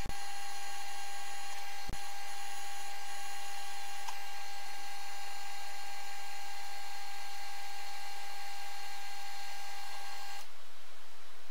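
Optimum mini lathe running under power with a steady high-pitched whine, turning a metal part. The whine stops about ten seconds in, leaving only a faint hiss.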